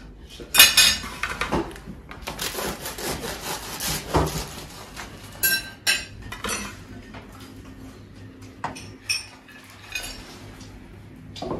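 Table knives and cutlery clinking and scraping on china plates as bread rolls are cut and buttered. A longer stretch of scraping comes a few seconds in, and a couple of sharp, ringing clinks come about halfway.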